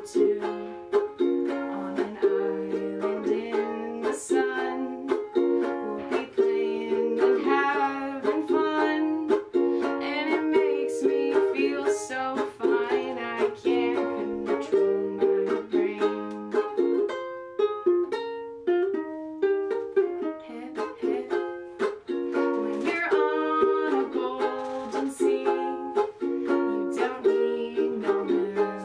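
Ukulele strummed in chords, with a woman singing over it in places.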